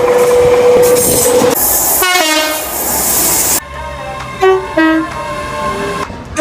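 British train horns in a run of short clips that cut abruptly from one to the next. A train runs past with a steady tone, then gives a long horn blast, and after a cut there are short toots alternating between two notes.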